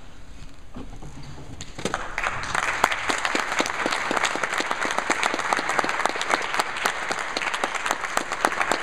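Audience applause: a crowd clapping, starting about two seconds in and quickly filling into steady, dense clapping.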